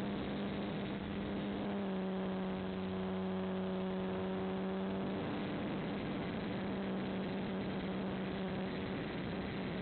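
Electric motor and propeller of an FPV model aircraft running steadily, a droning hum over a rush of wind noise; the hum grows fuller and slightly higher-pitched for about three seconds starting about two seconds in, then settles back.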